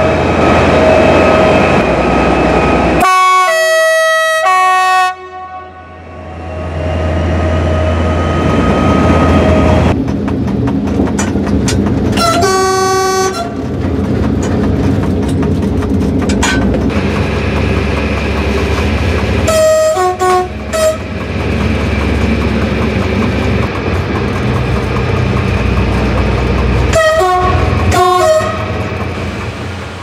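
SNCF train horns sounding two-tone blasts over a diesel engine and rail running noise. The first comes about three seconds in, with later blasts near the middle, about two-thirds through and near the end.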